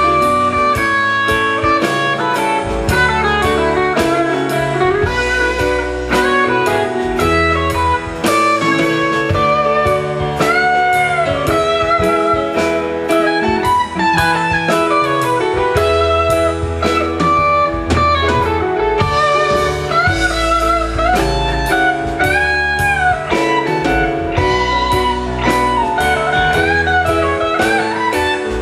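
Live rock band playing an instrumental passage: an electric guitar leads with bent, sliding notes over bass guitar and a steady drum kit.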